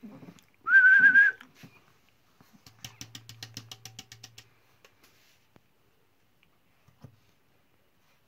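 A short, steady, high whistle about a second in, followed a couple of seconds later by a quick run of about a dozen sharp clicks.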